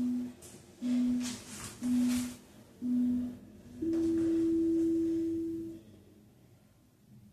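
Workout interval timer counting down: four short beeps about a second apart, then one long, slightly higher beep about two seconds long that marks the start of the next exercise interval. Heavy breathing is heard between the first beeps.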